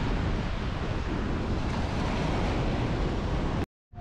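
Surf breaking and washing up the beach, mixed with wind buffeting the microphone; it cuts off suddenly near the end.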